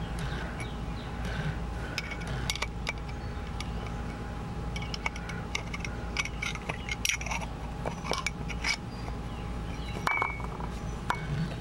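Small metallic clicks and clinks of a pick tool scraping and tapping against an oil filter housing cap while prying the old O-ring out of its groove, in irregular bunches, busiest in the second half.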